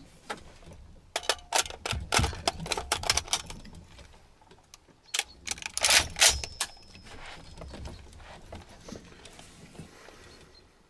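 Metallic clicks and clacks of an FN FAL (Lithgow L1A1) rifle being handled as its magazine is fitted. One quick run of clicks comes in the first few seconds, and a second, louder cluster comes about five to six seconds in.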